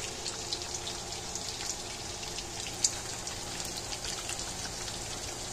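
Chicken frying in hot oil in a pan: a steady sizzle with scattered crackles and one sharp pop about three seconds in.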